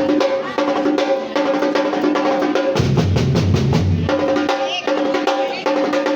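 Batucada samba percussion ensemble playing a fast, dense rhythm, with a ringing drum tone running through it. Deep bass drum strokes come in for about a second, midway.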